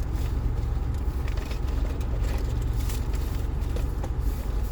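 A car's engine running, a steady low rumble heard from inside the cabin.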